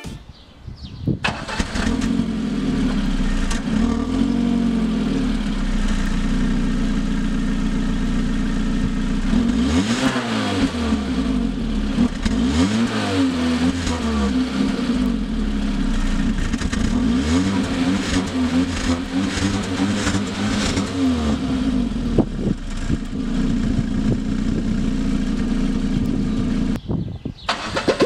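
Car engine running through its stock, unmodified exhaust tailpipe, idling steadily. It is revved up and back down several times in the middle.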